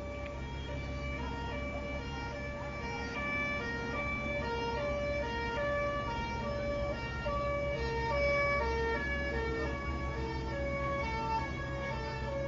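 Emergency vehicle's two-tone siren, switching between a high and a low note about every half second, over a steady low engine rumble.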